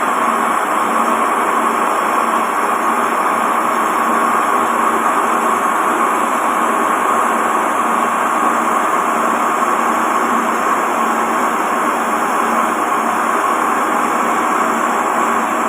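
Machine tool running steadily while a homemade radius cutter turns a 38 mm radius groove into a dowel-machine feed roller, with a constant hum and cutting noise.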